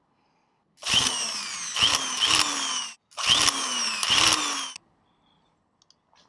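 Handheld electric tufting gun running in two bursts of about two seconds each, punching yarn into the rug backing, its motor pitch jumping up and sagging several times within each burst.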